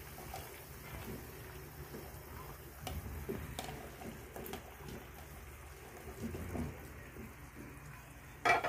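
Cauliflower florets sliding off a plastic chopping board and dropping into the liquid in a wok: soft plops and light knocks over a low steady hum, with one sharp knock near the end.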